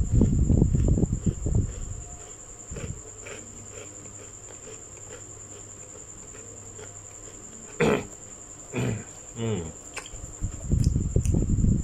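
A person eating snacks close to the microphone: loud crackly bursts at the start and again near the end, with a few short hummed "mm" sounds in between, over a faint steady high-pitched whine.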